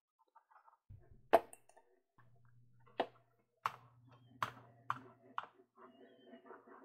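Computer mouse, a Microsoft 3500 wireless mouse, being worked on a mouse pad: six sharp clicks, the first and loudest about a second in, with a low rubbing hum between several of them as the mouse is moved.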